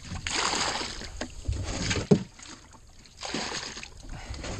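Water being bailed out of a small boat with a plastic bucket and poured over the side into the river, splashing twice. There is a sharp knock about two seconds in.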